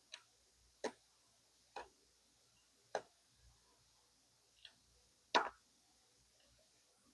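A blade cutting through the stitching of denim jeans: six short, sharp snaps at uneven intervals, the loudest and longest about five seconds in.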